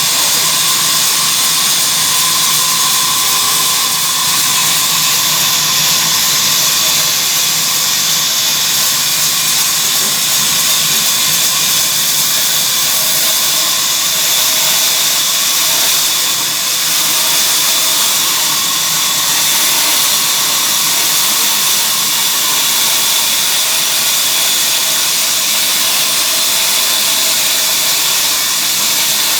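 Engine-powered wood-sawing machine running steadily: a loud, even, hissing mechanical noise that does not let up.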